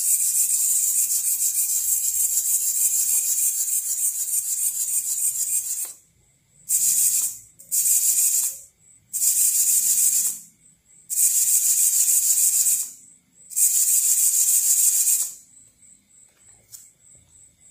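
Two Emax ES08MA micro servos flapping ornithopter wing rods back and forth, a fast high-pitched buzz. It runs steadily for about six seconds, then comes in five short bursts with pauses between, and stops near the end.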